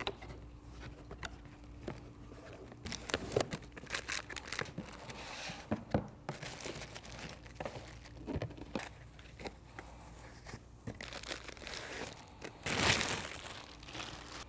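Packaging being handled during unboxing: cardboard box flaps, a paper insert and plastic bags rustling and crinkling in scattered short bursts, with a longer, louder plastic crinkle near the end as a bagged radio chassis is pulled out.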